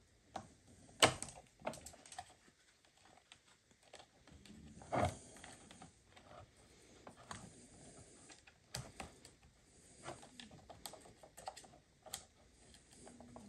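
Irregular small metal clicks and taps of a hook tool prying at pinched-on spade terminal connectors on a battery, with a louder knock about a second in and another about five seconds in.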